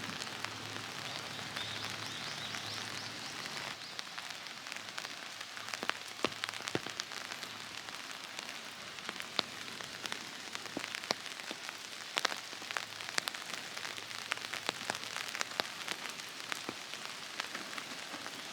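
Steady rain falling, with single drops tapping close by at irregular intervals from about six seconds in.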